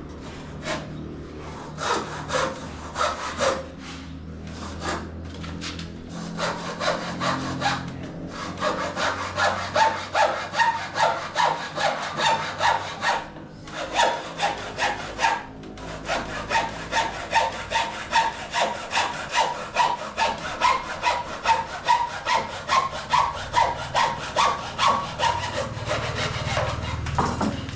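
Hand saw cutting a 45-degree mitre in cornice moulding: a few slow starting strokes, then steady back-and-forth strokes about two or three a second, broken by two short pauses about halfway through.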